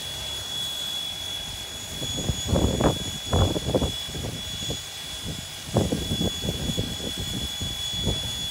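Alco 2-6-2 steam locomotive standing with steam hissing from around its cylinders, under a steady high-pitched whine. Two stretches of irregular thumping sounds come about two seconds in and again near six seconds.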